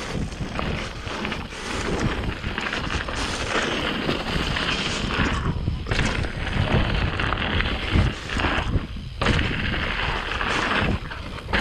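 Riding sound from a camera on a mountain bike: heavy wind rumble on the microphone, tyres rolling over rocks and dry leaves, and repeated hard knocks as the bike jolts over the rocky trail.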